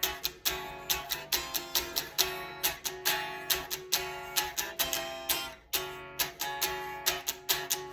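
Unplugged electric guitar strummed in a quick, steady rhythm, its chords ringing acoustically without an amplifier.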